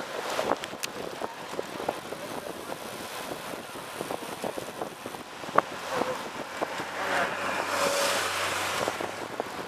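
Wind and road noise on a camera moving with a group of road bikes, with scattered small clicks and rattles. About seven seconds in, a motor vehicle's engine grows louder as a pickup truck comes up on the riders.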